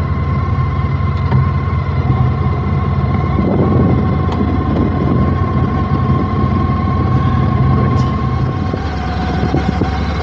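Motorcycle engine running steadily at an even, unchanging speed, with a steady high whine over it.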